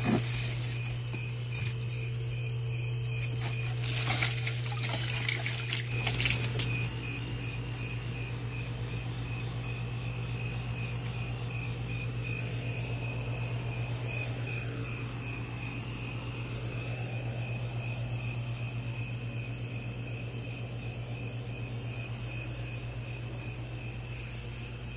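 Crickets calling steadily at night, a fast pulsing chirp that never lets up, over a low steady hum. About four to seven seconds in, a few brief louder handling noises.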